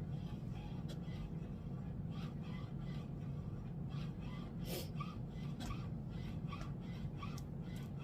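HP Smart Tank 5100 inkjet printer printing: a steady low hum with repeated short clicks and swishes as the paper and printhead move, coming quicker and more regularly in the second half.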